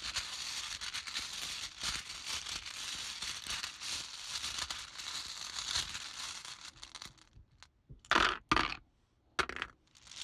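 Small letter tiles rustling and rattling as they are handled and shaken for casting. Near the end come three sharp clacks as pieces are set down or dropped.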